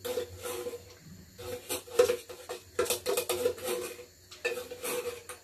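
Metal spoon scraping and clinking inside an opened tin can of sweetened condensed milk, in short irregular strokes with a few sharper clicks, as the thick milk is scooped out into a bowl.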